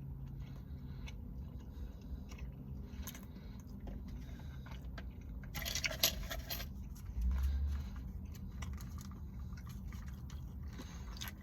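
A person chewing a White Castle chicken ring slider close to the microphone, with many small wet mouth clicks. About six seconds in there is a louder brief noisy burst, followed by a short low thump.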